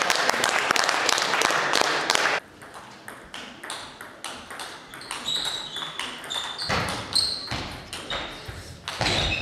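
A loud burst of crowd noise for the first two seconds as a point ends. Then a table tennis rally: the celluloid ball clicks sharply on the bats and table, and shoes squeak briefly on the hall floor.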